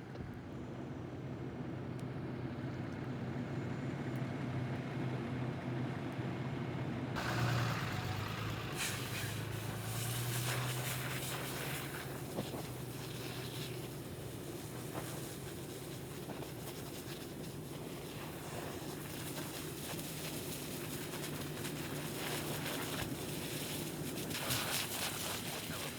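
Heavy truck engine idling with a steady low hum. About seven seconds in, a broad hiss of noise joins it, with scattered clicks.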